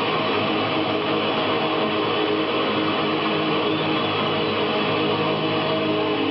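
Live rock band with distorted electric guitars playing a loud, steady wall of held chords, heard from the audience.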